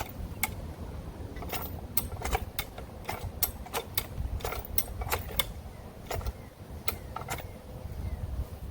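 A 48-inch high-lift farm jack being worked by its handle, its climbing mechanism clicking and clanking in a ragged series of sharp metal strokes as it lifts a chained fence post out of the ground.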